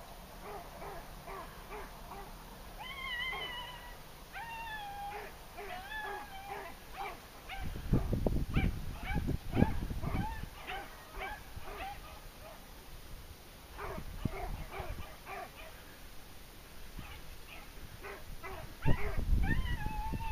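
A pack of beagles in full cry on a rabbit, with many overlapping yelping bays repeated several times a second: the hounds are running the rabbit's scent trail. Low rumbling bursts come in around eight to ten seconds in and again near the end.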